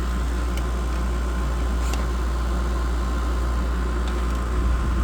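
Window air conditioners running after start-up: a steady low compressor hum under even fan-blown air noise, with a faint steady whine above it.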